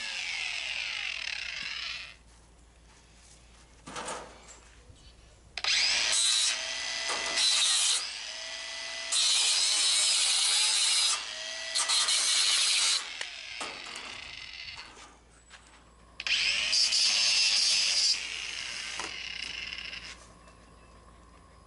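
Corded angle grinder with a thin cutting disc slicing through galvanized hardware cloth, run in about five short bursts of a couple of seconds each, its whine falling away between cuts. The wire is wearing the cutting disc down.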